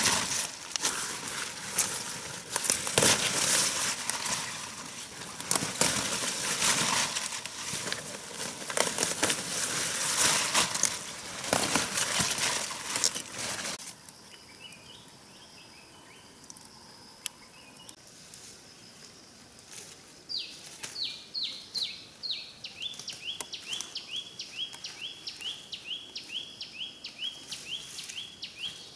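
Leaves and stems rustling and crackling as they are handled, dense and irregular, until it stops about halfway through. After that there is a quiet outdoor background, and from about two-thirds in a high chirp repeats about three times a second, each chirp falling in pitch.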